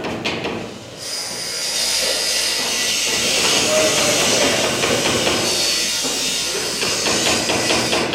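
A loud, steady hiss that starts suddenly about a second in and stops near the end.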